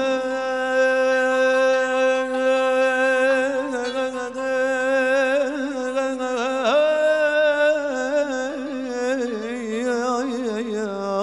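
Male singer holding a long wordless note in a mawwal, the Arabic vocal improvisation. The pitch holds steady at first, dips and slides back up about two-thirds in, then breaks into quavering melismatic ornaments near the end.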